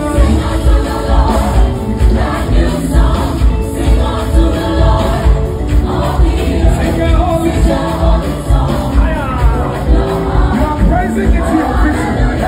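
Live gospel music with a steady beat and many voices singing together.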